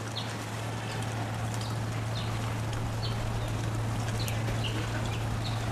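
Outdoor farmyard ambience: a steady low hum under a faint hiss, with brief high chirps scattered through it.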